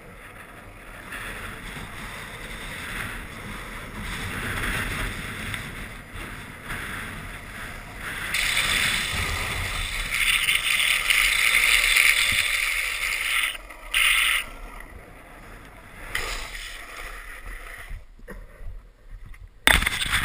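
Longboard's urethane wheels rolling fast over rough asphalt, with wind rushing on the microphone; the noise grows louder and brighter for a few seconds midway. Near the end it drops away, with a few sharp knocks.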